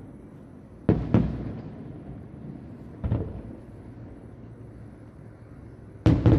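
Distant fireworks shells bursting: a pair of bangs about a second in, a single bang about three seconds in, and another pair near the end, each trailing off in a rumble.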